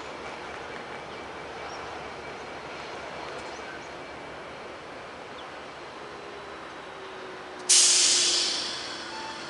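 Diesel-electric freight locomotive hauling a coal train as it approaches, with a steady rumble. About three-quarters of the way in comes a sudden loud hiss that fades over about a second.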